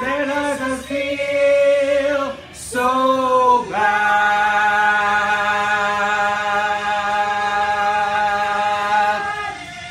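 A small group of men and women singing together: two shorter notes, then a long final note held out from about four seconds in, stopping shortly before the end. This is the big held closing note of the song.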